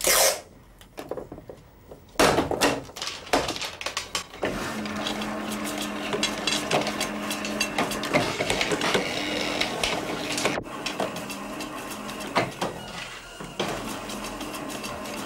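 Clicks and knocks of the controls on a film editing table, then, about four seconds in, its motor and film transport start running steadily with a hum and rapid ticking.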